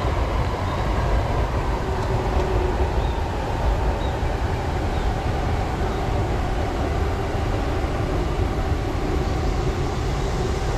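Steady rumble of a passing train, with a faint steady whine over it.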